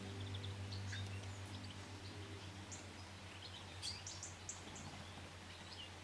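Faint, scattered short chirps and calls of small wild birds, over a low steady hum.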